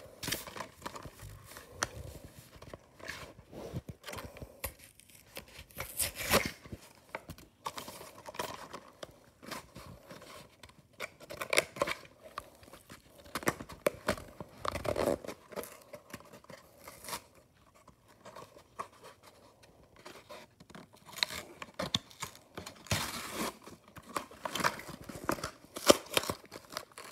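Cardboard blister-card packaging of toy cars being torn open by hand, with irregular ripping and crinkling and a few louder rips along the way.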